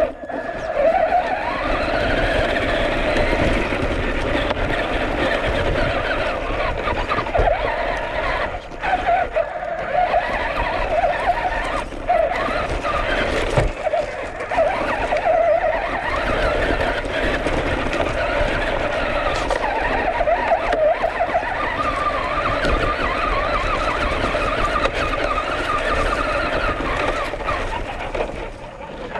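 Traxxas Rustler 4x4 RC truck's electric motor and geared drivetrain whining, the pitch rising and falling with the throttle, over the crunch of its tyres on dirt, leaves and roots, with a few brief knocks.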